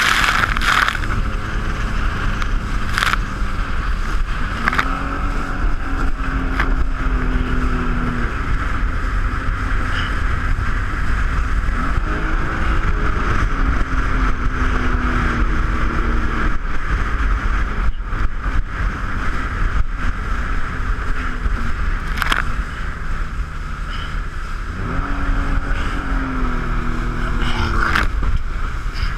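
Jet ski engine under way, its pitch rising and then holding three times as the throttle opens, over a steady loud rush of noise.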